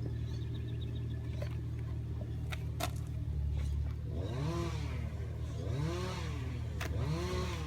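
A steady low engine-like drone, with a whine that rises and falls three times in the second half, and a few faint clicks. No loud bang.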